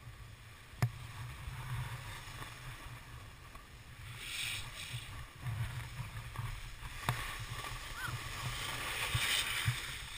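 Skiing over packed snow: a steady scraping hiss of edges on the groomed slope that swells twice, heard through a GoPro Hero HD's sealed housing over a low wind rumble, with a couple of sharp clicks.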